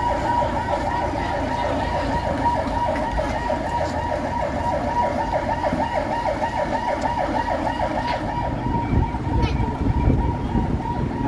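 Motorcade siren sounding a fast yelp, its pitch wavering up and down several times a second; it fades out about two thirds of the way through, leaving a low rumble of the convoy's vehicles.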